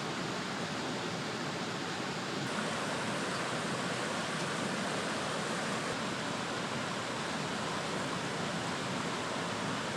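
A stream running, a steady even rushing of water.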